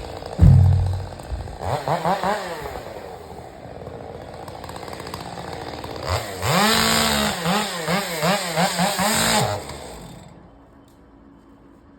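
Stihl chainsaw revving in a string of quick throttle blips, rising and falling in pitch several times before it cuts off near the end. A heavy thump about half a second in is the loudest moment.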